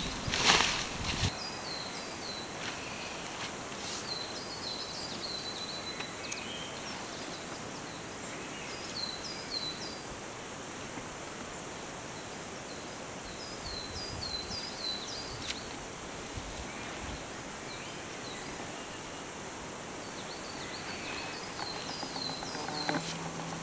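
Woodland ambience: a steady hiss of outdoor background with a small songbird repeating short, high chirping phrases every few seconds. A brief rustle in the first second.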